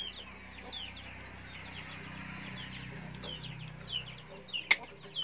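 Chicks peeping steadily: a quick run of short, high, falling peeps. A single sharp click near the end is the loudest sound, over a faint low hum.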